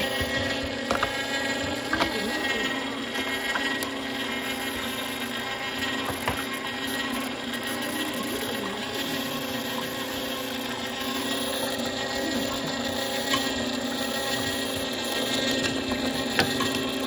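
Sharp Healsio Juicepresso slow screw juicer running steadily as it presses peeled mandarin oranges: an even motor-and-gear hum, with a few sharp clicks along the way.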